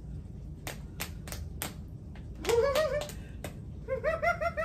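Sharp taps at about three a second, then a woman's voice rising about two and a half seconds in and a short giggle near the end.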